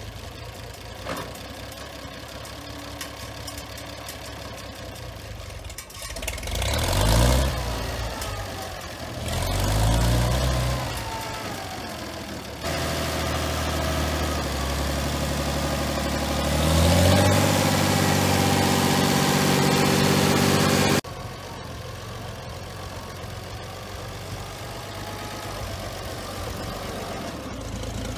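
1960 Farmall 460 tractor's six-cylinder engine idling steadily, then revved up and back down twice. It then runs louder and steadier, rises in pitch again partway through, and drops suddenly to a quieter steady run near the end.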